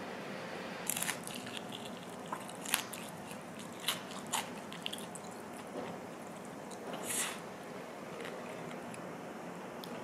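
Close-miked eating sounds of black-bean instant noodles with fried egg being picked up with chopsticks and eaten: a handful of short, crisp clicks and smacks, and one longer rustle about seven seconds in, over a steady low hiss.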